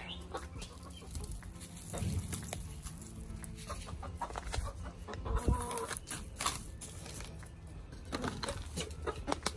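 Domestic hens clucking quietly now and then, with a few light scattered taps.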